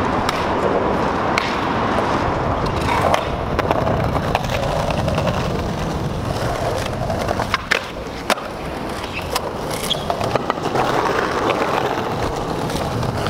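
Skateboard rolling over hexagonal paving stones: a steady rumble from the wheels, with many scattered sharp clicks and knocks.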